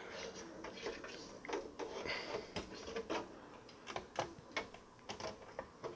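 Irregular light clicks, taps and scrapes of a large graphics card (Gigabyte WindForce GTX 980) being tilted and worked into a PCI Express slot inside a PC case, its bracket and shroud knocking lightly against the case and motherboard.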